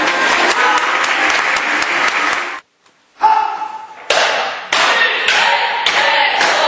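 A group of taekwondo students performing forms together: a dense clatter of feet stamping and uniforms snapping, with short shouts. The sound drops out briefly a little before halfway.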